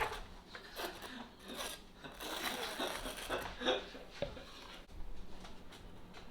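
Kitchen food-preparation sounds: a series of short, irregular scrapes and rubs of utensils and food being handled.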